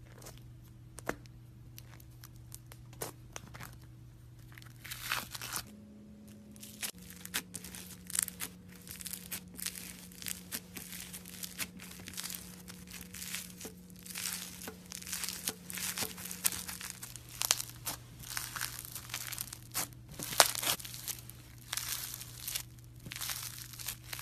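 Slime being squeezed, pressed and stretched by hand, giving irregular crackling and popping clicks that come thicker and louder after the first few seconds.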